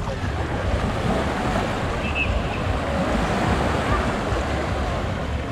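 Small waves washing onto a beach, with wind buffeting the microphone in a steady low rumble and faint voices of people in the background.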